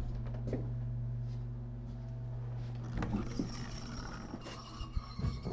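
Steady low electrical motor hum in a small tiled room, then a few knocks and clatters as a wooden push door is opened, in the second half.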